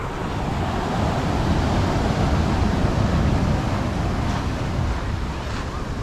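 Surf breaking and washing up a pebble-and-sand beach, swelling about a second in and easing off toward the end, with wind rumbling on the microphone.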